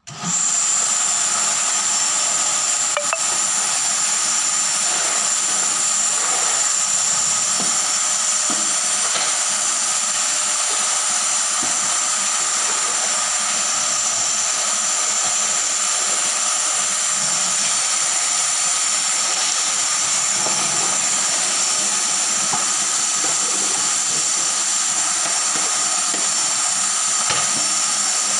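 Drum-type canister vacuum cleaner switched on, its motor coming up to speed in a fraction of a second and then running steadily with a high whine over its rushing air noise.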